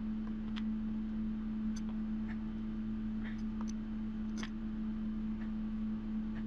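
A steady low hum, with faint scattered clicks and ticks from hands working a strip of clay and a small hand roller on a wooden board.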